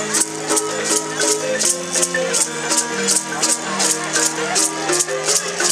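Traditional deer-dance music: a rattle shaken in a steady beat, about two and a half shakes a second, over a melody of held notes.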